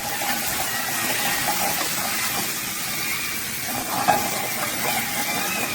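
Water running steadily, like a kitchen tap, with a short knock about four seconds in.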